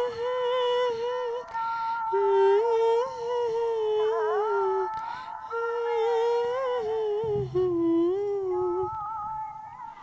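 Background music: a slow, wordless melody, hummed or sung, in long held notes that slide into one another, phrase after phrase.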